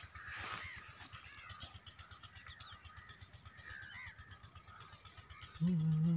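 Birds chirping and calling over open farmland, above a low, fast-pulsing rumble. Near the end comes a loud, short, low-pitched call of under a second.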